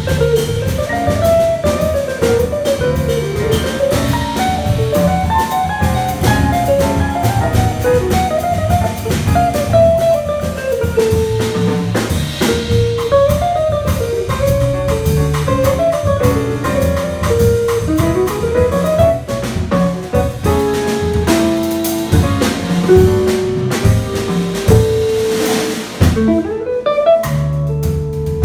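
Jazz quartet playing: archtop electric guitar, upright double bass, drum kit and grand piano. A single-note melody line moves up and down over a changing bass line and drum kit with cymbals.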